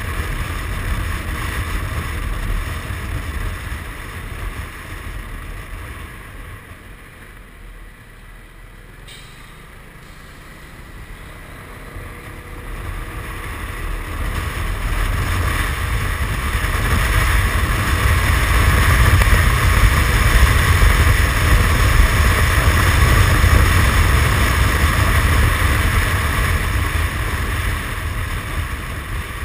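Suzuki Burgman 400 maxi-scooter on the move: a steady rush of wind over the microphone mixed with engine and tyre noise. It quietens from about six to eleven seconds in, then grows louder from about thirteen seconds, stays loud through the middle of the stretch and eases off near the end.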